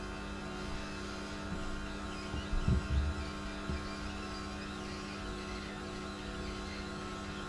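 Philips masticating juicer's motor running with a steady hum while an apple sits jammed in the feed tube, with a few low thumps about midway.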